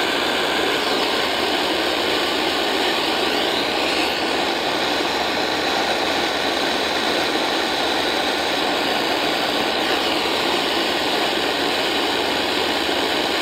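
AM radio receiver static: a steady hiss with no station audible.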